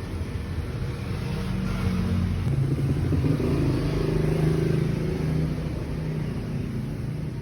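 Motorcycle engine running. It revs up about two seconds in, holds for a couple of seconds, then eases back.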